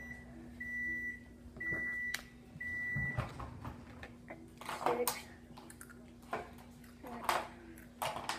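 An electronic appliance beeper sounds three short high beeps about a second apart, over a faint steady hum. A few sharp knocks and clatters follow in the second half.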